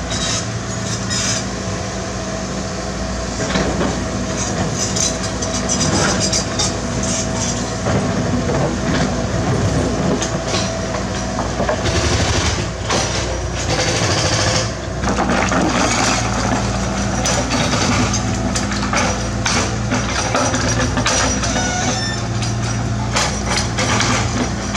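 Mini excavator's diesel engine running steadily under hydraulic load, with repeated clatter and scraping of rock debris against the steel bucket.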